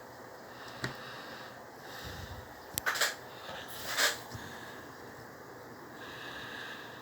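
A 1970 Eletromar Westinghouse desk fan running with a steady rush of air. A few brief louder puffs of noise come around three and four seconds in, with a sharp click just before them.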